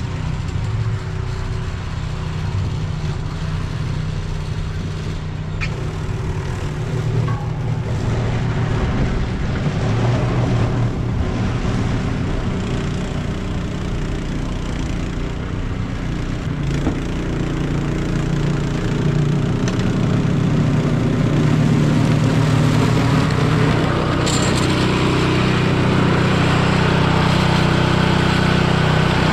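Engine running steadily under load, growing louder about two-thirds of the way in.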